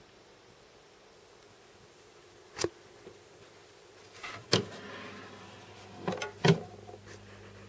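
Garrard record changer on a 1963 Kriesler stereogram cycling before play: a clunk a couple of seconds in, another about halfway, then a quick double clunk near the end, over a faint hiss. A steady low hum comes in after the second clunk.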